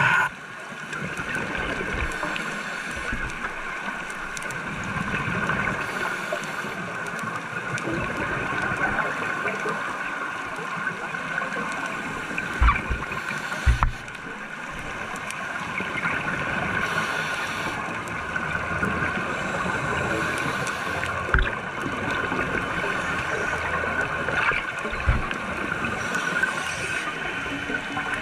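Underwater sound picked up by a diver's camera in its housing: a steady hum and hiss, with a few dull knocks now and then.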